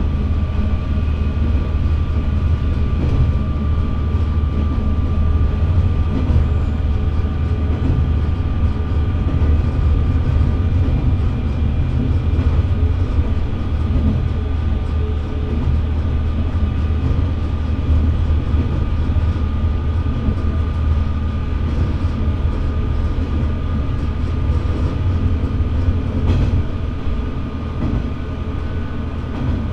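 Diesel railcar running along the line, heard from inside at the front: a steady low engine drone with a constant whine over it and the rumble of wheels on rail. A single knock comes near the end.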